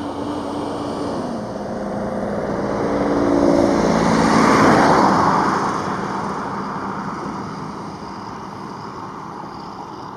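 Large jet air tanker flying low overhead: an engine whine falling in pitch at first, then the rush of the jet engines building to loudest about halfway through and fading away as it passes.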